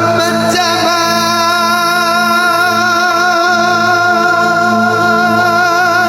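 Background music from an Arabic devotional song: a singer holds one long note with a slight waver over a steady low drone.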